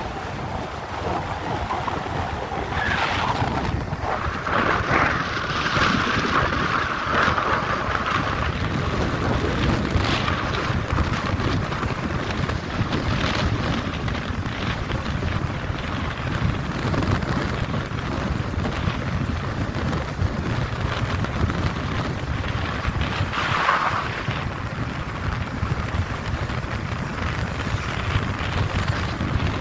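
Wind buffeting the microphone of a moving vehicle, with the vehicle's engine and road noise running underneath.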